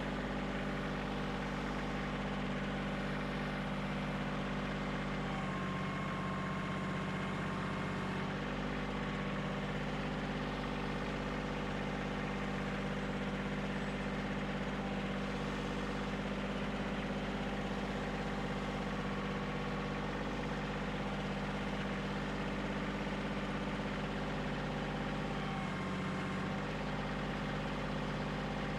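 Kioti CK2610 compact tractor's diesel engine running steadily while the grapple handles a log. The engine note shifts under load for about three seconds some five seconds in, and briefly again near the end.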